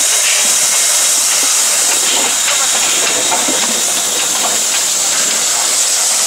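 Polish Tkt48 steam tank locomotive venting steam, a loud steady hiss.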